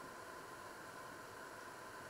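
Steady faint hiss with a slight hum in it, unchanging throughout: quiet background noise beside a stove with covered pots on it.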